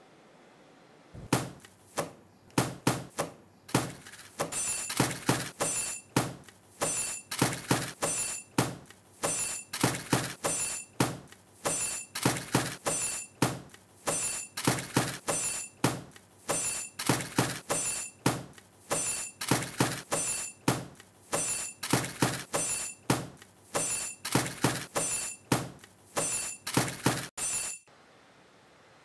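A rhythmic percussion beat of sharp, clattering hits in a repeating pattern, some hits carrying a high ringing tone. It starts abruptly about a second in and cuts off near the end.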